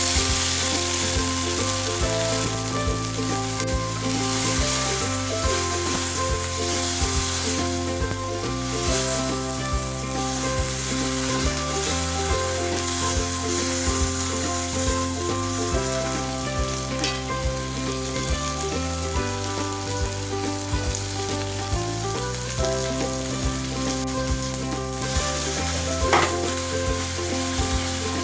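Chopped tomatoes frying in hot oil in a nonstick pan, sizzling loudly from the moment they go in, while a wooden spatula stirs them.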